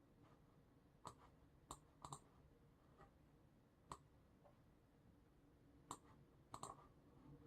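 Faint, scattered clicks from a computer mouse and keyboard, irregularly spaced with a few quick pairs, as in occasional clicking and keystrokes rather than steady typing.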